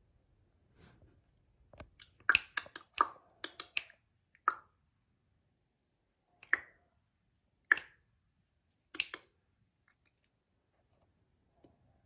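Sharp clicks and snaps made off camera to catch a puppy's attention: a quick flurry between about two and five seconds in, then single or double clicks about a second apart.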